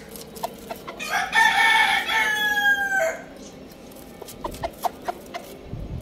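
A rooster crows once, about a second in, a single call of about two seconds that drops in pitch at the end. Short chicken clucks come before and after the crow.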